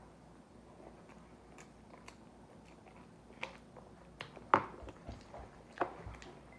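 A person chewing bread close to the microphone: scattered short mouth clicks and smacks over a quiet background, the loudest about two-thirds of the way through.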